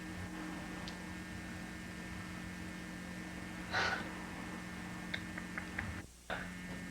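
Steady electrical hum on a home video recording, with one short breathy puff about four seconds in and a few faint ticks. The sound drops out for about a third of a second near the end.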